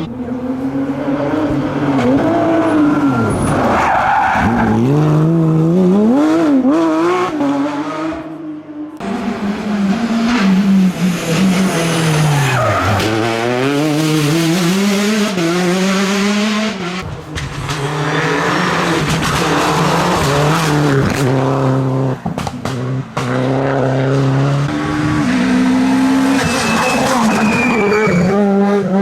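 Rally cars at full attack, engines revving hard with the pitch climbing and dropping through gear changes and braking, with tyre squeal. The sound cuts abruptly to another car's pass about nine seconds in and again near the middle.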